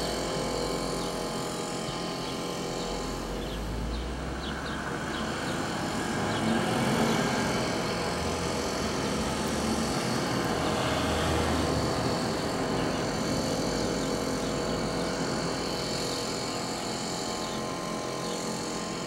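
Petrol backpack leaf blower running steadily, its engine droning under a rush of air as it blows dust and debris out of a cut-out pothole ahead of patching. The air blast grows louder for a few seconds in the middle.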